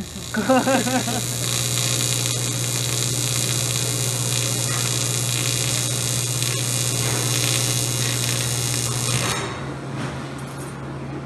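TIG welding arc buzzing steadily while a metal intercooler pipe bend is welded: a strong low hum with hiss over it. The buzz starts abruptly and drops slightly in level about nine and a half seconds in.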